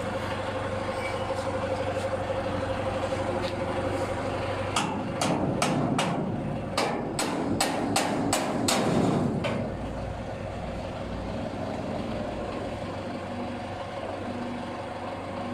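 A hand hammer strikes the steel weigh hopper of a batching machine, a rapid run of about a dozen sharp metallic blows between about five and nine and a half seconds in, over a steady machine hum.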